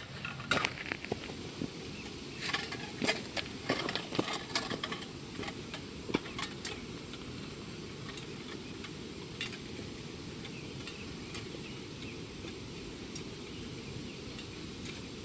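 Scattered sharp clicks and light clinks, many in the first seven seconds and only a few after, over a steady low background noise.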